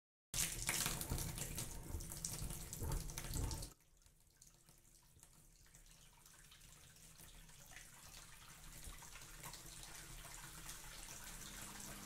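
Kitchen tap running into a sink, starting suddenly and cutting off abruptly about three and a half seconds in. After that a faint steady hiss slowly grows louder.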